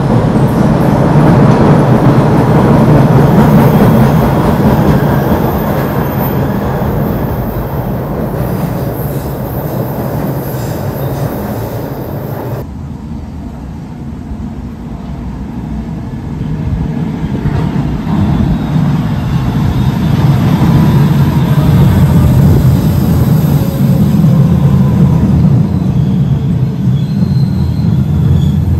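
Train running on the track, a heavy low rumble that swells and fades, with an abrupt change in the sound about 13 seconds in. Faint squealing from the wheels comes in the second half.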